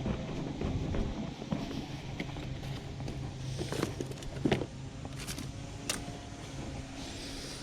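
Objects being shifted and handled while rummaging through a curbside trash pile: several sharp knocks and rattles about four to six seconds in, over a steady low engine hum.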